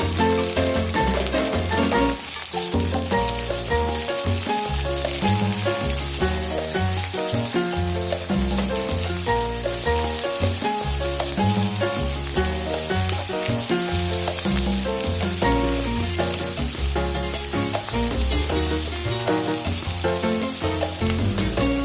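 Food sizzling as it fries in hot oil in a pan, a steady crackling hiss, with background music carrying a steady bass line over it.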